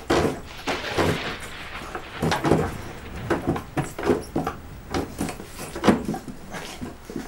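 A man tied to a chair struggling: the chair creaking, knocking and scraping on the floor in repeated irregular bursts, mixed with his grunts and strained cries.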